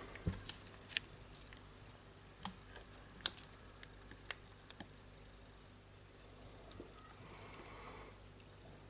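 Faint, scattered light clicks and taps of small metal parts being handled while a small pin is worked into the blade holder clamp mechanism of a Makita reciprocating saw; the sharpest click is about three seconds in.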